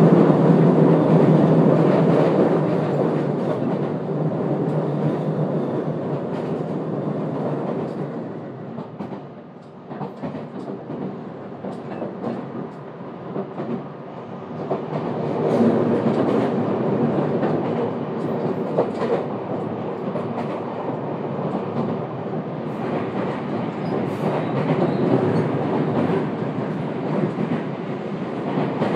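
Running noise of a JR West 227 series electric train heard from inside the passenger car: wheels rumbling on the rails with scattered clicks over rail joints. The rumble is loudest in the first few seconds, drops away about nine seconds in, and builds again about fifteen seconds in.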